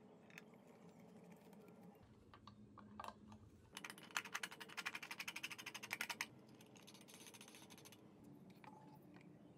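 A fast run of small metallic clicks, about ten a second for a couple of seconds, from a threaded metal rod and nut being worked through the hole in a tin can's lid. Fainter clicks follow.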